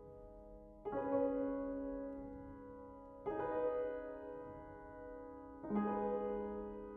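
Soft piano music: three chords struck about two and a half seconds apart, each left to ring and fade.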